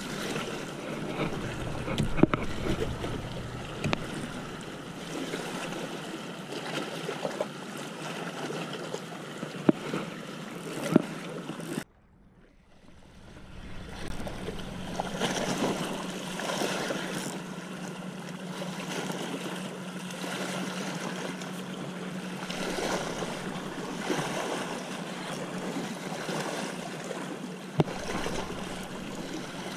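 Outdoor wind and water noise, a steady rushing with a few sharp clicks. It cuts out abruptly about twelve seconds in and fades back up over the next two seconds.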